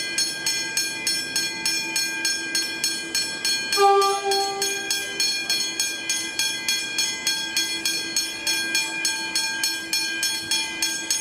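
Level-crossing warning bell ringing with a steady, even rhythm of strikes. About four seconds in, a short horn blast sounds over it for about a second and a half.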